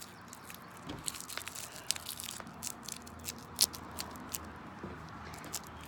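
Plastic film being peeled off a honeycomb package: a run of irregular sharp crackles and clicks, with one louder snap about halfway through.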